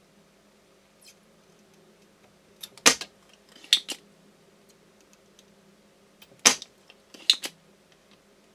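Spring-loaded solder sucker (desoldering pump) snapping as it fires, four sharp snaps in two pairs, sucking molten solder off the pins of a worn mouse microswitch to free it from the board.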